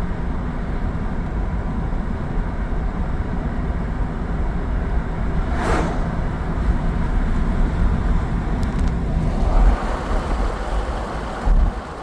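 A vehicle driving on a road, with a steady low rumble of engine and tyres. There is a brief swish about six seconds in, and the hiss grows louder near the end.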